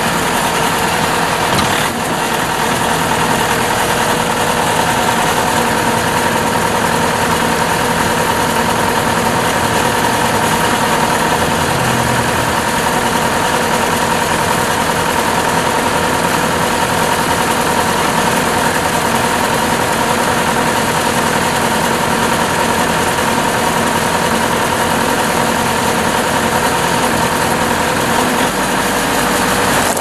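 Bobcat S550 skid steer's Kubota 2.6-litre four-cylinder turbo diesel running steadily at idle, with a steady whine over the engine note.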